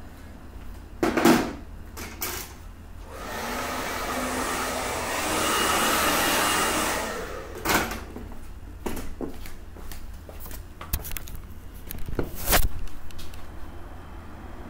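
A hiss of aerosol hairspray lasting about four seconds, swelling and then fading, set around a few sharp clicks and knocks. The two loudest knocks come just after a second in and near the end.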